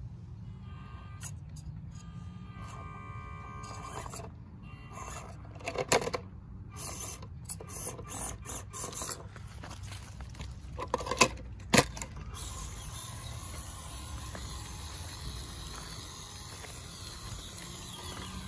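Small electric motor and gears of a stock FMS Atlas 6x6 RC crawler whining in short stop-start bursts as it climbs rock. There is a sharp knock about six seconds in and two more just before twelve seconds, as the chassis and tires strike the rock.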